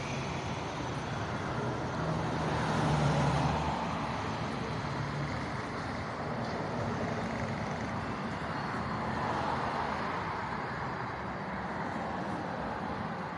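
City street traffic: motor vehicles passing on the road, one engine growing louder about two to three seconds in and fading, then another vehicle passing later.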